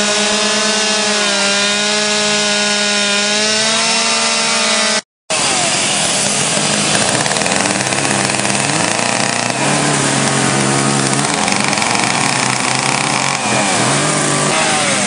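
Chainsaws running hard while cutting into wood, the engine pitch rising and dipping as they bite. There is a brief dropout about five seconds in, after which a different saw is heard.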